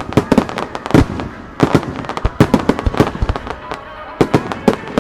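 Starmine fireworks barrage: aerial shells bursting in rapid, irregular succession, many sharp booms a second, each with a short echoing tail.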